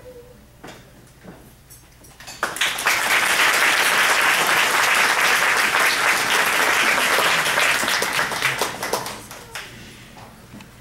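An audience applauding. The last held chord of a women's vocal trio ends right at the start, a few scattered claps follow, then full applause breaks out about two and a half seconds in and dies away near the end.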